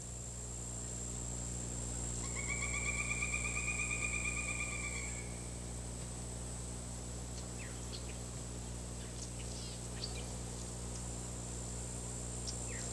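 Swamp ambience: a steady high-pitched insect drone, with a rolling trill of rapid notes about two seconds in that lasts about three seconds, then a few faint short chirps.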